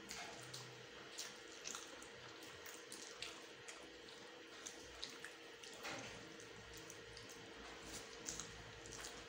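Faint, wet eating sounds of people eating spicy instant noodles by hand: chewing and lip smacking, with scattered small clicks.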